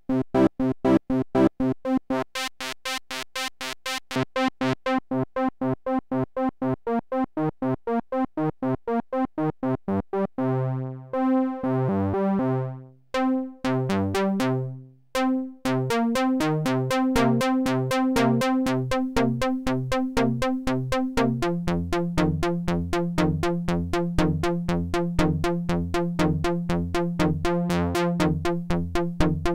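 Fred's Lab Zekit analog-digital hybrid synthesizer playing its built-in sequenced motifs on a paraphonic waveform: a fast, steady run of short repeated notes. The pattern switches to a different motif about ten seconds in and again about twenty-one seconds in.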